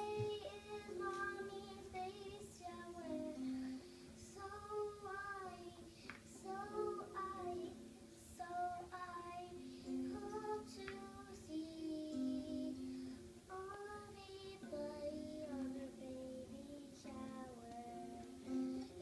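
A young girl singing a song while strumming chords on a small guitar.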